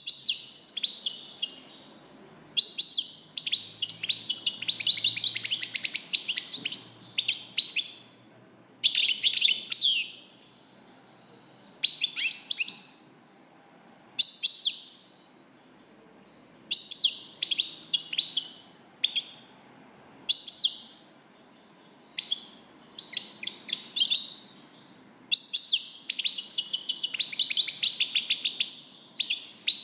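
European goldfinch singing: bouts of rapid, twittering song broken by short pauses, with the longest runs a few seconds in and near the end.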